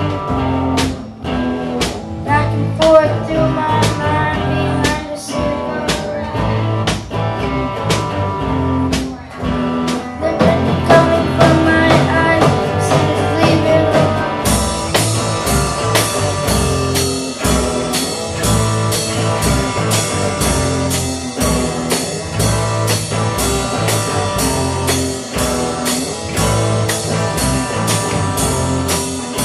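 A children's rock band playing live on electric guitars, electric bass and drums. About halfway through, cymbals come in on a steady beat of about two hits a second.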